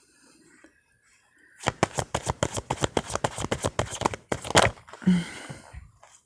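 Tarot cards being shuffled: a fast run of crisp card clicks, roughly ten a second, for about three seconds, ending in a short rustle as the deck is handled.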